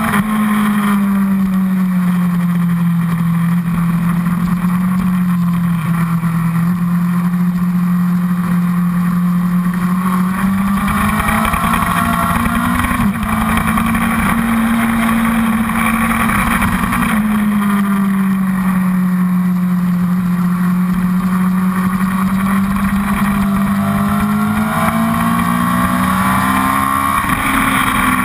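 Honda CBR1000RR Fireblade's inline-four engine running hard on track, its pitch sagging and climbing slowly a few times as the throttle is eased and opened, with steady wind rush over the tank-mounted camera.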